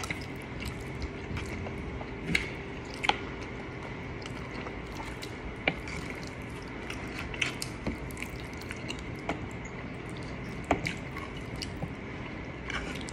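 Eating sounds as spaghetti and fried chicken wings are chewed and bitten: scattered wet clicks and smacks, a few of them louder, over a faint steady hum.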